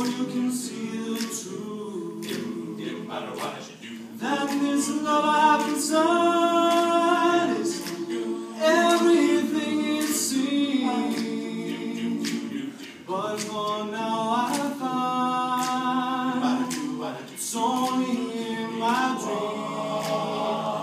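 All-male a cappella group singing held chords in close harmony, with vocal percussion clicking out a steady beat over them.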